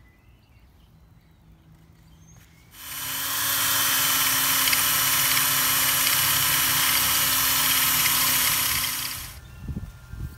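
Cordless drill running steadily as it bores a hole through a flat metal bar bracket, starting about three seconds in and stopping about six seconds later.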